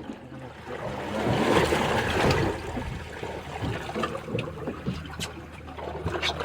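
Water splashing and trickling on a fishing boat over a steady low engine hum, the splashing loudest about one to two and a half seconds in, with a few short sharp knocks near the end.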